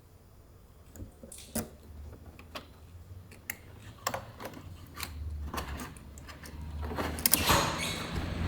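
Handling noise during the unboxing of a crated scooter: scattered sharp metallic clicks and knocks, then a louder scraping, rustling stretch with a few sharp hits near the end.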